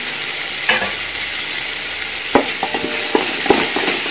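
Chopped tomato and onions sizzling in hot oil in a large aluminium pot. From about halfway through, a wooden spatula knocks and scrapes against the pot in quick irregular clicks as the mixture is stirred.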